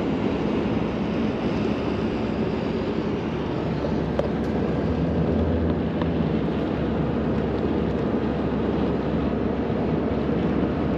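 Steady road and engine noise inside a moving vehicle's cabin, an even rush with a low hum.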